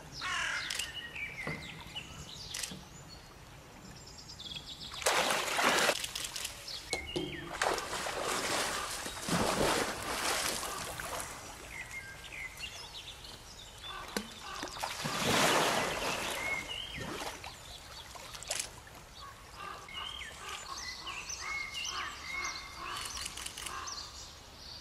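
Brown bears wading through pond water, splashing in several loud bursts, with small birds chirping in the background.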